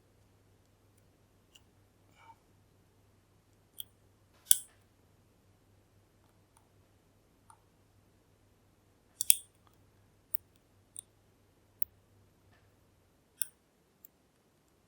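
A Kale Kilit 10-pin dimple lock being picked: the pick and tension tool click sharply and irregularly against the pins, with the loudest clicks about four and nine seconds in.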